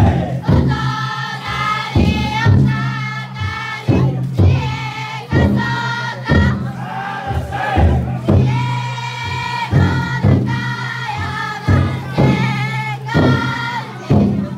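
Futon daiko bearers chanting loudly in unison, with the float's taiko drum struck about once a second.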